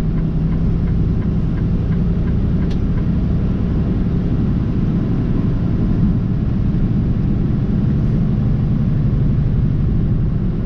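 Steady low drone inside a semi truck's cab cruising at highway speed: diesel engine and tyre-road noise. A single brief click sounds about three seconds in.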